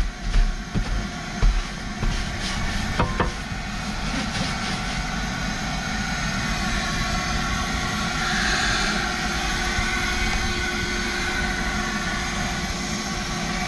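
A stiff brush scrubbing the soapy, ribbed floor mat of a truck cab, in irregular scraping strokes with a few clicks for the first three seconds or so. After that, a steady mechanical hum with hiss.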